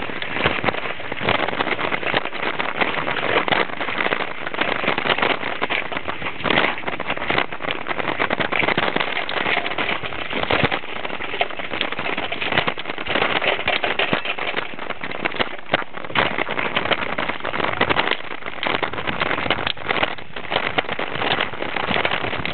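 Bicycle rattling and clattering as it is ridden over a rough, unpaved dirt track: a dense, continuous stream of small knocks and crackles from the tyres and jolting frame.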